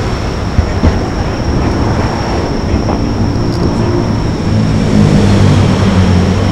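Steady low rumbling noise with no firework bursts in it.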